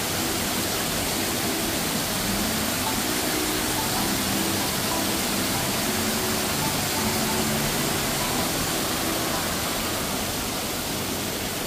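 Small forest waterfall and cascade rushing steadily over rocks, a little quieter near the end.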